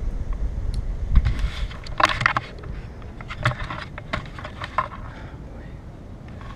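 Mountain bike clattering over a trail: an irregular run of clicks and rattles, with wind rumbling on the microphone in the first second or so.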